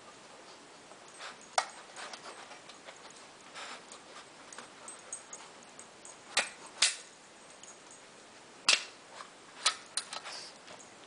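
Sharp clicks and knocks as a small dog noses tennis balls around in the cups of a metal muffin tin, with softer rustling between. The hits come irregularly, loudest as a close pair past the middle and another a couple of seconds later.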